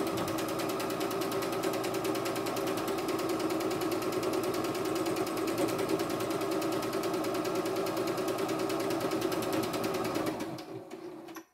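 CNY E960 computerised sewing-and-embroidery machine stitching an automatic buttonhole on its own, a steady fast needle rhythm. It winds down and stops about a second before the end.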